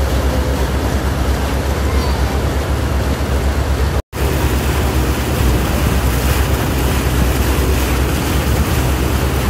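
Heavy wind buffeting a phone microphone over the steady rush of a boat moving across open water, with a deep low rumble throughout. It drops out for an instant about four seconds in, then continues the same.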